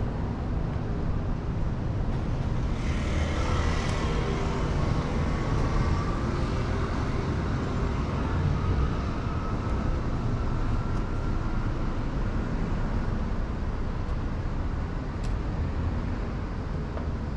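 City street ambience: a steady low rumble, with a passing vehicle's hiss swelling about three seconds in and fading away slowly.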